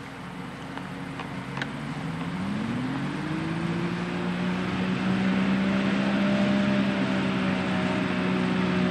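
Two-stroke 100 hp 2SI engine of a homebuilt ultralight plane running on the ground. About two seconds in its note rises as the throttle opens, then holds steady while it grows louder.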